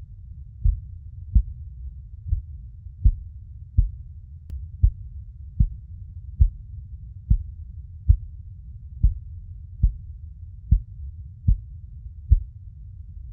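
Heartbeat: soft low thumps a little under a second apart, about seventy a minute, over a steady low rumble.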